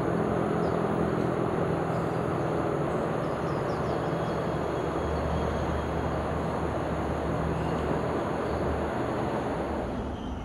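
Steady outdoor rumble of vehicle traffic, with a low engine hum underneath that shifts in pitch about halfway through and eases slightly near the end.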